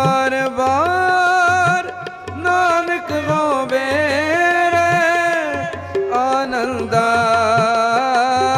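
Sikh devotional hymn (shabad kirtan) with a drawn-out, gliding melody line over tabla strokes whose low drum slides up in pitch.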